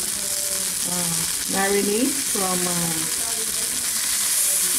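Skinless chicken legs sizzling steadily as they fry without oil in a stainless steel electric skillet, with a silicone spatula moving the pieces near the end. A voice is heard briefly in the middle.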